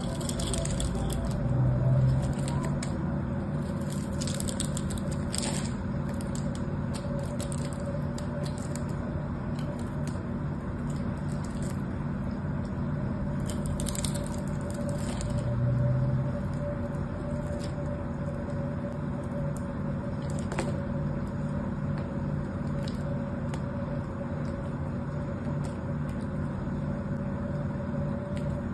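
A craft knife blade cutting and prying into a hard bar of soap, giving scattered crisp crackling clicks as small cubes and chips break away, over a steady low hum.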